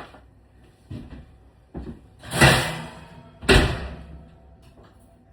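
A series of knocks and thuds while kitchen items are handled. The two loudest come about two and a half and three and a half seconds in, each fading out over about half a second, much like a door or cupboard banging shut.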